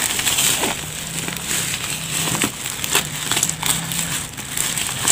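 Plastic mailer bag and clear packing tape of a parcel crinkling and crackling as it is handled and turned over, with irregular rustles and small clicks.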